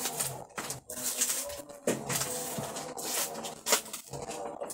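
Cardboard carton of bottled drinking water being handled and opened: irregular rustling and scraping of the cardboard flaps.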